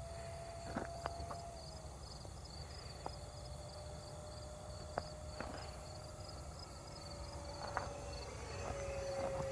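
Faint steady whine of a model jet's 50 mm electric ducted fan at about half throttle, its pitch dropping slightly a couple of times. Crickets chirp in a steady rhythm, and there are a few faint clicks.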